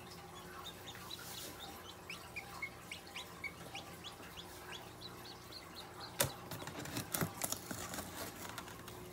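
Newly hatched chick peeping: a quick run of short, high, falling peeps, about three a second, for the first six seconds or so. Then a sharp knock and a few clicks and rustles.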